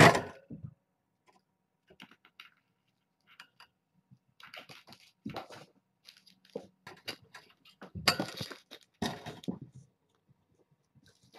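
Kittens playing on a carpeted floor among toys: irregular scuffles, scratches and light thumps, with a loud bump at the very start as a cat brushes the camera, and denser bursts of scuffling near the end.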